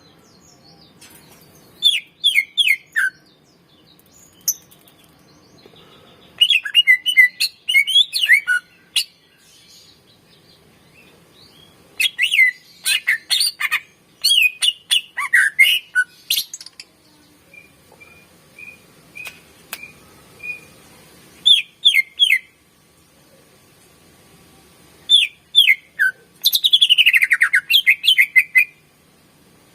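Cucak ijo (green leafbird) singing in bursts of rapid, sweeping whistled phrases with pauses between them. A short series of evenly spaced level notes comes in the middle, and a long descending run of notes near the end.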